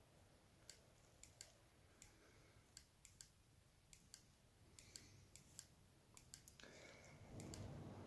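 Near silence with faint, irregular small clicks, about twenty in all. A faint rustle of movement comes in near the end.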